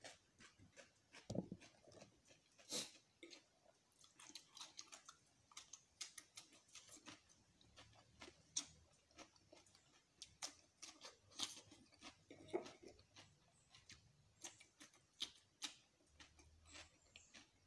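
Faint, irregular lip smacks and mouth clicks from a man who has finished eating, several a second in places, with a few louder smacks scattered through.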